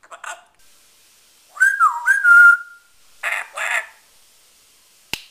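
African grey parrot whistling: a clear, loud whistle about a second and a half in that dips in pitch and rises again, followed by two short raspy sounds. A single sharp click near the end.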